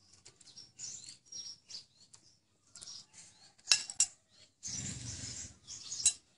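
A metal spoon clinks twice on a ceramic plate just before four seconds in, then the plate is handled and set down with a rustling shuffle and one more sharp clink near the end. Soft ticks and rustles of handling come between.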